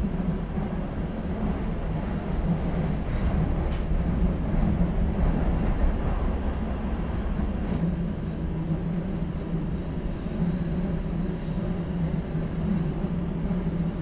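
Oslo metro train heard from inside the carriage while running on surface track: a steady rumble of wheels on rails with a low hum underneath. A single short click comes a little under four seconds in.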